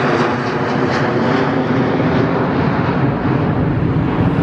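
Jet airliner engines running loud and steady as the aircraft flies low overhead: a dense rumble with a low hum running through it.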